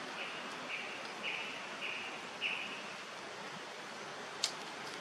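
Steady outdoor hiss with a bird calling a row of about five short, even chirps, about two a second, that stops just before halfway; a single sharp click comes near the end.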